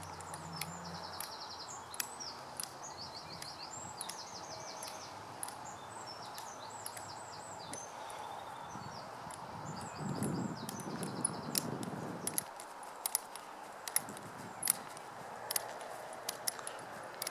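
Songbirds singing in quick, repeated high trills over a quiet outdoor background, with sharp clicks and light rattles of metal crutches being planted on grass as a person walks on them as arm extenders; the clicks come thicker in the second half.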